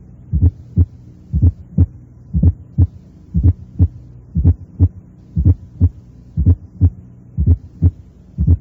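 Stethoscope recording of heart sounds at the cardiac apex, about one beat a second: normal first and second heart sounds, each first sound preceded closely by a low-pitched atrial sound (fourth heart sound) of moderate intensity.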